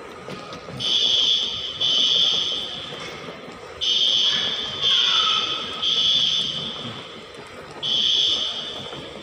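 Electronic warning beeper: a high buzzing tone sounds six times, each beep just under a second long, in groups of two, three and one.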